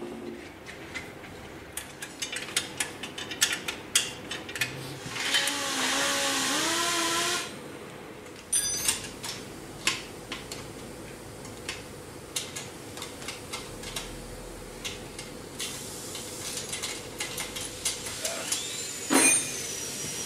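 Metal hand tools and parts of an M72 motorcycle clinking and knocking as it is dismantled, over a faint steady hum. A steady hiss with a wavering squeal runs for about two seconds a quarter of the way in, and a sharp loud metallic knock comes near the end.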